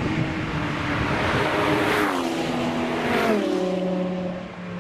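Car engine on a race track approaching at speed. Its note drops in pitch twice, about two and three seconds in, over a rushing wash of tyre and road noise.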